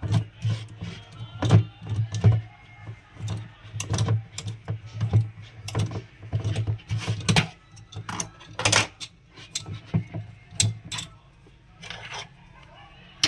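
Irregular metallic clinks and rattles of a spanner working the second nut loose on a mixer grinder motor, over a steady low hum.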